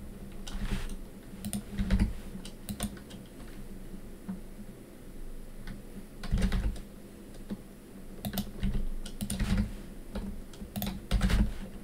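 Computer keyboard keys and mouse clicks tapping irregularly, in small clusters with pauses between, over a faint low steady hum.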